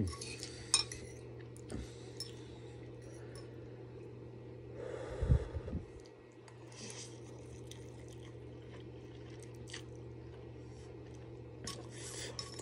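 Eating noodles: a metal fork clicks and scrapes on a ceramic bowl, with chewing and mouth noises, loudest about five seconds in as a forkful is taken up. A steady low hum underlies it.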